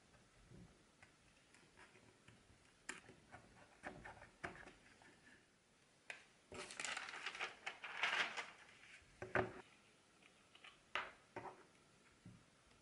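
Small hand tools and thin wooden parts being worked and handled on a cutting mat: scattered light clicks and taps, a scraping, rustling stretch of about two seconds in the middle, then a few sharp clicks.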